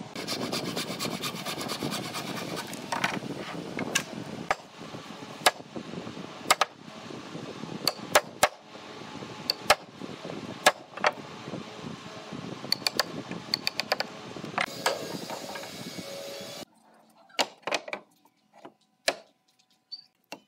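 Wood chisel cutting a notch in a wooden rail: a run of sharp, irregular knocks and cracks over a steady workshop hum. Near the end the sound drops away to quiet, with only a few light clicks.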